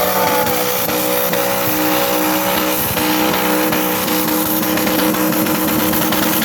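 A car engine running loudly at a steady, unchanging pitch, over a constant loud din.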